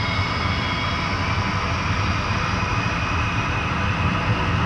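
Lockheed SR-71 Blackbird's twin Pratt & Whitney J58 turbojets running on the runway: a steady low rumble under a high turbine whine that slowly rises in pitch.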